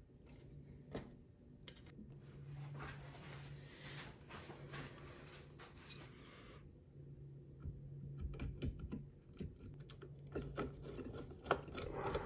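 Faint scraping and scratching, then scattered small metal clicks and knocks, from an awl being worked into the slots of the X-Carve's Z-axis assembly to turn its T-nuts.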